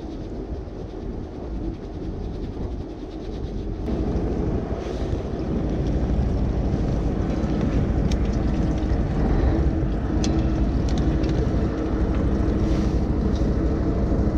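Steady rumble of a fishing boat's engine with wind on the microphone, growing louder about four seconds in. A few short sharp clicks come in the second half as the filefish is swung aboard and handled.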